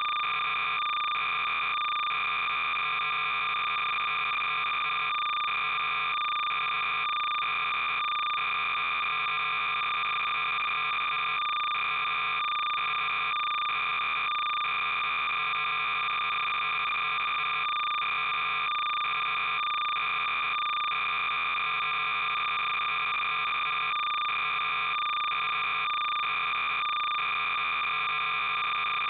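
Steady synthetic electronic noise: a hissing buzz made of several fixed tones, with a faint pulse repeating a little faster than once a second and no high treble.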